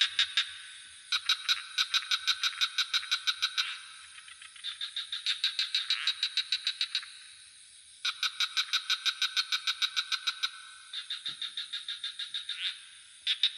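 Frogs calling in rapid pulsed trills, about eight pulses a second, in repeated bouts of two to three seconds with short pauses between. A steady high-pitched insect drone runs underneath.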